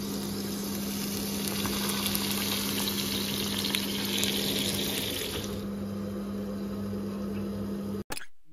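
Eggs frying in a pan: a steady sizzle that is loudest in the middle and eases off after about five and a half seconds, over a steady low hum. Both cut off suddenly near the end.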